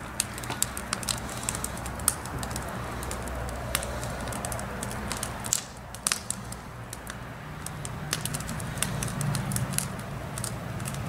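Wood campfire in a metal fire ring crackling, with frequent irregular sharp pops over a steady low hum.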